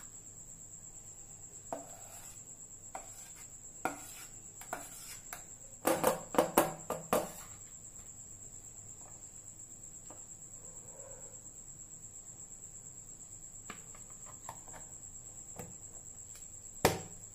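A steel spoon scrapes and clinks against a steel bowl as thick strained yogurt is scooped into a plastic container, with scattered clicks and a quick cluster of clinks about six seconds in. A plastic lid knocks once near the end. A cricket trills steadily and high-pitched underneath.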